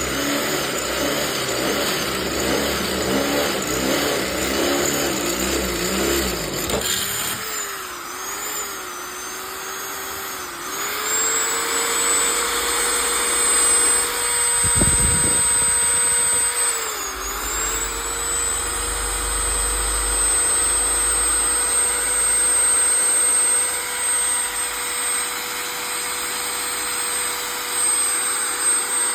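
Bosch 550 W electric drill motor running with a steady whine. Its pitch sags briefly a few times as it comes under load, and rough rattling noise runs under it for the first several seconds.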